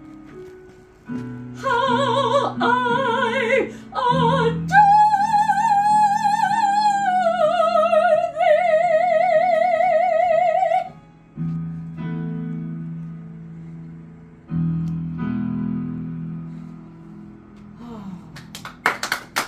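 Female classical soprano sings the closing phrase with wide vibrato, ending on a long held high note, over a recorded piano accompaniment. The piano then finishes alone with sustained chords, and hand clapping starts just before the end.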